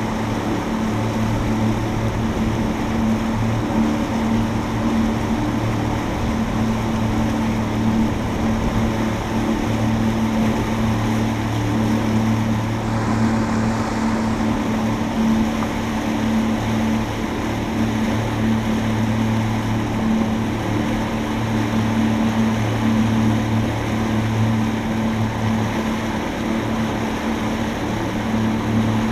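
Small boat's motor running steadily underway: a constant low hum, with rushing water and wind noise over it.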